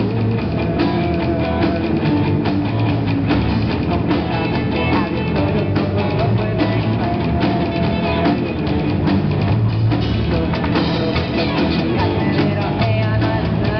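Live rock band playing: drum kit and electric guitars driving a steady rock groove, with a woman singing into a microphone over the PA.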